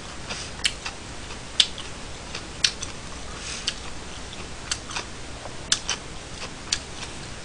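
Irregular sharp clicks and ticks, roughly one or two a second, over a steady low hiss, with a brief soft rush of noise about three and a half seconds in.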